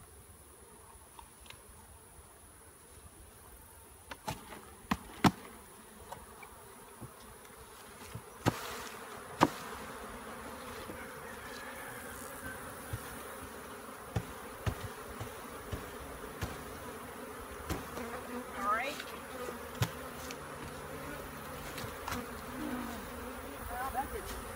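Swarm of honeybees buzzing steadily around an open hive, growing louder near the end, with a few sharp knocks, the loudest about five and nine seconds in.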